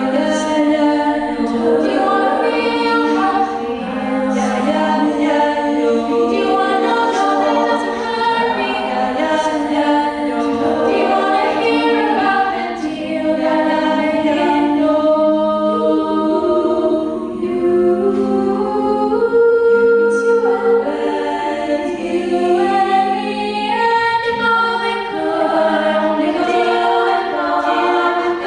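An a cappella vocal group singing in close harmony: several voices holding chords that shift together, over a sustained low bass note.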